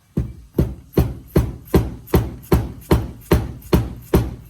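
Dead blow hammer striking a CV joint on an axle clamped in a vise: about eleven even blows, roughly two and a half a second, driving the joint off the axle's splines.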